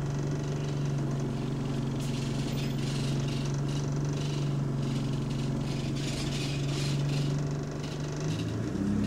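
Bus engine running steadily, heard from inside the passenger saloon, with intermittent rattling over the hum from a loose exhaust. The engine note drops a little under a second before the end.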